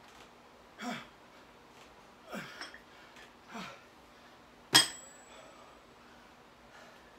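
A person breathes out hard three times during dumbbell reps, then a pair of iron plate-loaded 25 lb dumbbells is set down on a rubber mat and clinks sharply against itself, with a brief metallic ring. The clink is the loudest sound.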